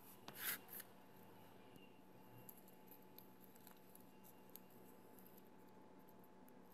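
Faint handling and folding of a thin strip of origami paper: soft crinkles and small ticks, with one brief louder rustle about half a second in.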